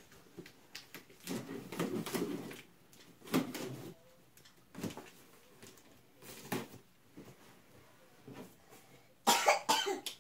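Long cardboard box being handled and shifted about: irregular taps, scrapes and rustles, with a louder burst of noise near the end.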